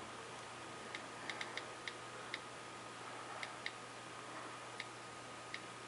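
Faint keyboard clicks from an iPod Touch's on-screen keyboard, about ten short ticks at an uneven pace as a word is typed letter by letter.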